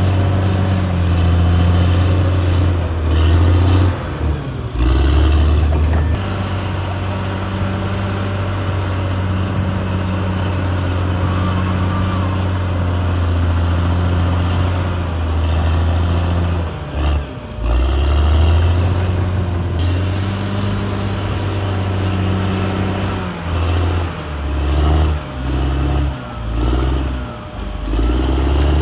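Caterpillar D6R bulldozer's diesel engine running under load, its steady low note dipping briefly a few seconds in, again about halfway through, and several times in quick succession near the end.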